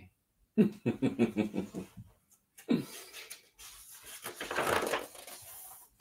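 A man laughs briefly, then a picture book's page is turned with a papery rustle lasting about two seconds.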